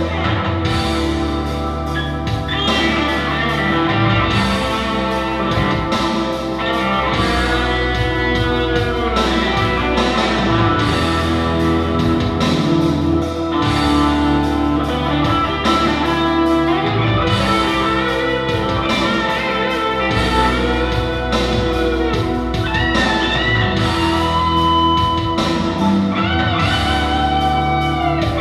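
Solid-body electric guitar playing a rock-blues lead with bent notes, over a backing of steady bass and a regular beat.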